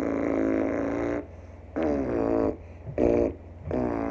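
A child's lips buzzing in a beatbox lip bass, blown through pursed lips without voice and pushed toward the corner of the mouth. There are four buzzes: a steady one about a second long, a second that slides down in pitch, a short third, and a steady last one.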